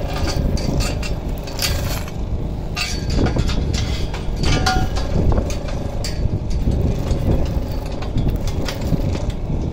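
Irregular metallic clinks and taps from steel greenhouse truss parts being handled and fitted, over a steady low mechanical hum.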